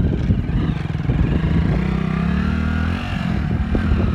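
Hero Splendor motorcycle's single-cylinder four-stroke engine revving as the rider spins the rear wheel in wet mud in tight circles. The revs climb from about a second and a half in, then drop back near three seconds.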